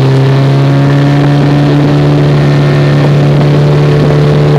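Flat-bottomed boat's motor running loud and steady at one pitch while under way.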